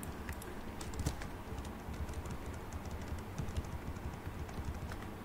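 Computer keyboard keys clicking in an irregular run of key presses as code is typed.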